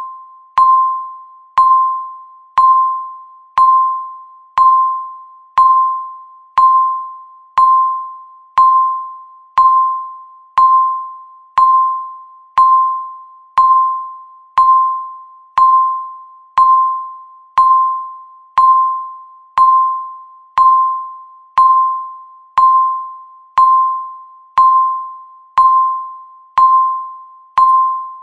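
Countdown timer beep: a single short electronic tone that sounds once every second, each one struck sharply and fading quickly, at the same pitch every time.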